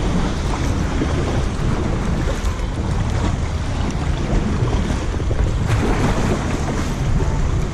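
Wind buffeting the microphone, with lake water washing and lapping around a kayak.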